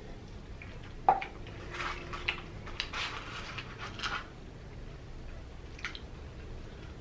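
Close-up eating sounds: a sharp click about a second in, then a run of wet, squishy mouth and chewing sounds as French fries are eaten, dying down after about four seconds.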